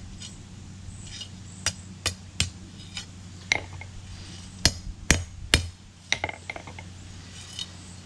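Hammer blows on a hay rake tine over an anvil while the loop of a screwdriver is forged: two quick runs of three sharp, ringing strikes, with a lighter blow between them and small clinks after. A steady low hum lies underneath.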